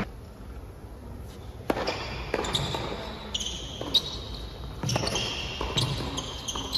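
Doubles tennis rally on an indoor hard court: racket strikes and ball bounces, sharp hits at uneven intervals beginning a little under two seconds in, with shoes squeaking on the court.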